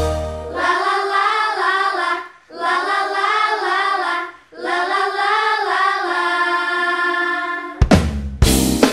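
Wordless singing by high voices: three long held phrases with vibrato, unaccompanied, with short breaks between them. About 8 seconds in, a band with drums comes in.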